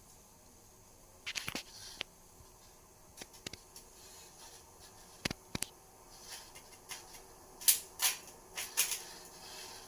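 Kitchen utensils being handled: scattered light clicks and taps, a sharp pair about halfway through, and the loudest cluster near the end.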